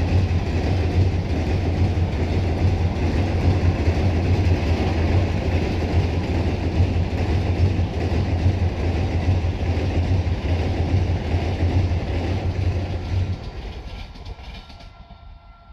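Indian Railways passenger coaches rolling past over a girder bridge: a loud, steady rumble with wheel clatter. It drops away sharply about thirteen seconds in and fades as the end of the train passes.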